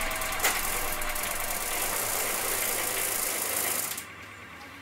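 Bicycle drivetrain of a 1979 Viscount Gran Prix running as the cranks turn: the chain running over the chainring and through the derailleur, a steady mechanical rattle that cuts off about four seconds in.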